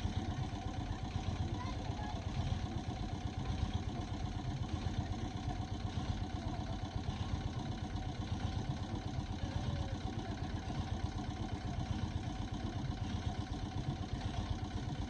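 1912 McLaren 8NHP steam traction engine running out of gear, its flywheel and motion work turning with a quick, even mechanical beat at a constant pace.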